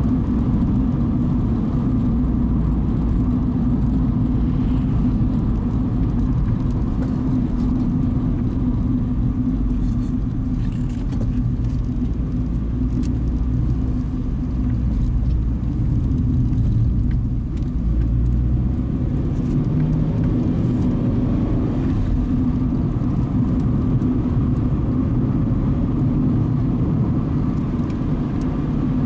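Car driving at road speed: steady engine and tyre rumble, with a short rise in pitch about two-thirds of the way through.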